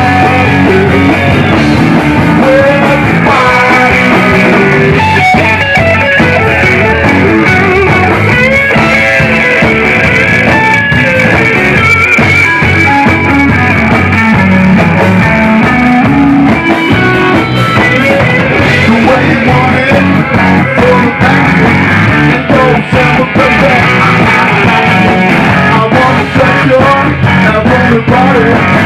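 Rock music with guitar playing continuously at a loud, steady level.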